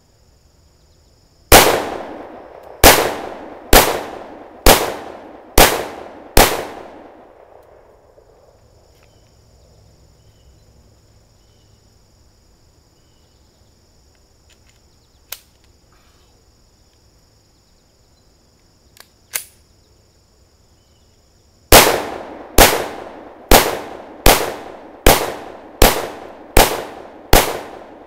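Glock 32 Gen 3 pistol in .357 SIG firing: six shots about a second apart, each with a short echo tail. After a pause of about fifteen seconds comes a faster string of about nine shots near the end.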